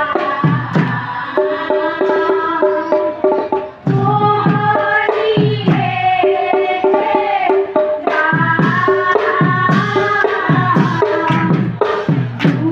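Women's group singing an Assamese thiya naam devotional folk song, accompanied by hand-drum beats, with a brief break in the singing about four seconds in.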